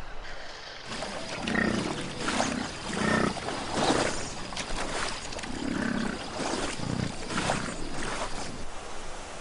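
Deep growls and roars from a grizzly bear and wolves confronting each other. About eight calls come one after another, with a short lull near the middle.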